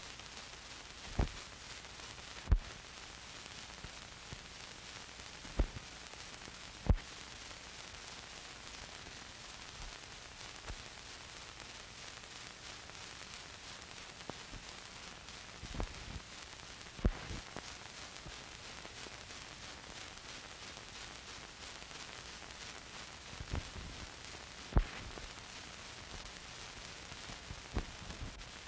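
Steady hiss and static of an old film soundtrack carrying no programme sound, broken by about nine sharp clicks and pops.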